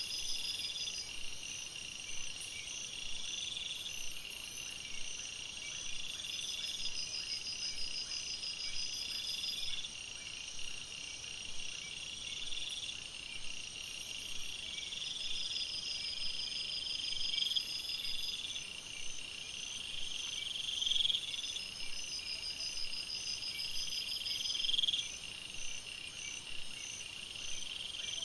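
Night-time chorus of calling crickets and other insects: a steady high trill, with a rising call repeating about every three seconds and faster pulsed trills above it. The rising calls are loudest near the end.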